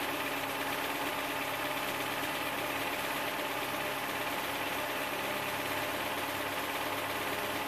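Replacement Toyota engine idling steadily with a knock, which the owner takes for rod knock: a bad engine.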